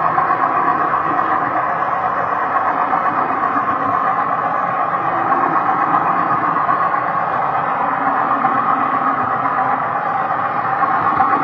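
HO-scale model train running steadily along the track, heard from the camera wagon in the train: a continuous engine-like drone with no breaks.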